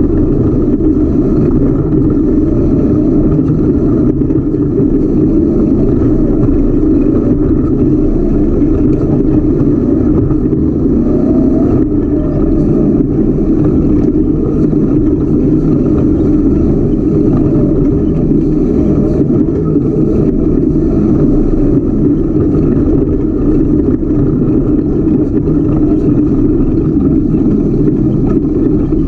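Ultra4 race car's engine running steadily as the car drives a rough dirt trail, a loud continuous drone picked up by a camera mounted on the car's front.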